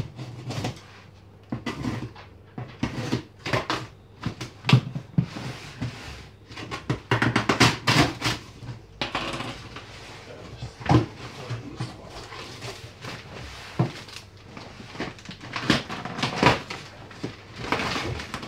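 A knife slitting the packing tape on a cardboard box, then the cardboard flaps being pulled open and a foil insulated liner crinkling and rustling, in a run of irregular scrapes, rips and rustles.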